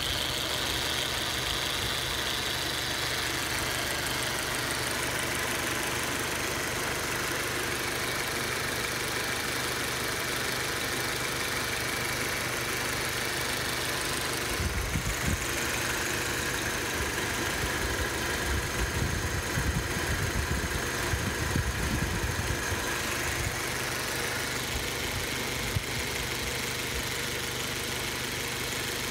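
Audi 1.8T turbocharged four-cylinder engine idling steadily, heard up close in the open engine bay, with a fast light clicking that the owner puts down to the EVAP valve working. A rougher, louder low rumble comes in for several seconds in the middle.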